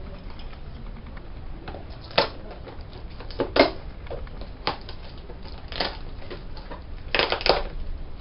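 Parcel packaging being handled and opened: scattered irregular crackles and clicks, with a denser cluster near the end.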